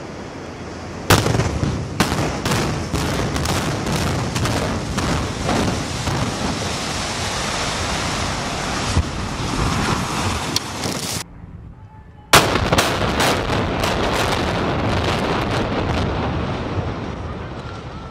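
Building implosion by explosive demolition: a sudden blast about a second in, then a rapid string of sharp charge detonations over the dense rumble of the structure collapsing. About twelve seconds in a second implosion starts with another sudden blast, more cracking charges and a long rumble.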